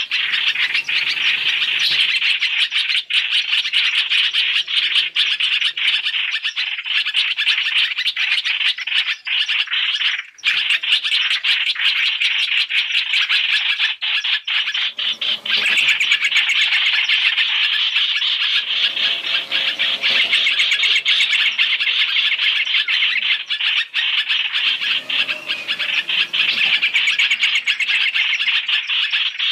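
Hoành hoạch (trao trảo) bird calls played as a trapping lure: a dense, unbroken stream of rapid chirps. It is a "3 in 1" mix of the species' calls, made to draw the birds to a trap.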